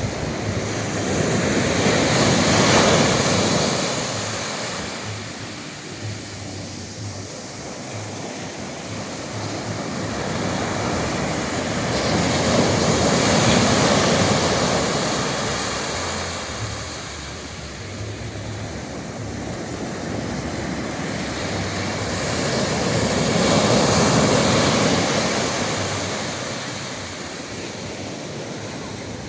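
Ocean waves breaking and washing up a beach, a steady rush of surf that swells three times, about ten seconds apart.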